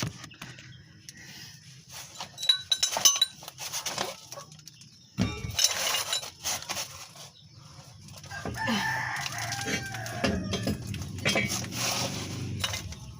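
A rooster crowing, a drawn-out pitched call from about two-thirds of the way in. Earlier there are sharp scattered clicks and knocks.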